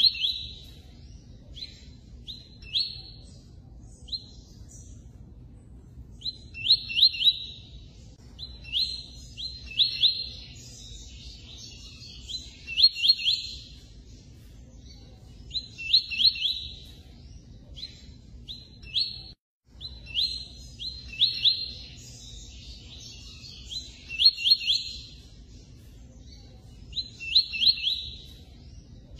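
Double-collared seedeater (coleiro) singing: short phrases of quick, repeated high chirps, one every two to three seconds, over a faint steady low rumble. There is a brief total dropout about two-thirds of the way in.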